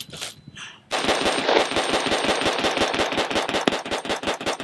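AR-15 carbine firing a rapid string of semi-automatic shots with 55-grain brass-case full-metal-jacket ammunition, several shots a second, starting about a second in.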